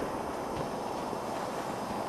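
Steady wind noise rushing on the microphone.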